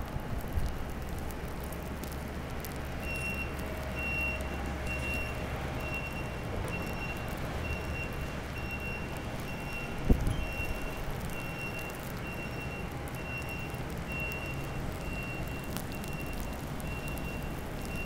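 Blizzard wind rushing over the microphone, with a vehicle's reversing alarm beeping about twice a second from about three seconds in. A low engine rumble runs under the first few seconds, and there is a single thump about ten seconds in.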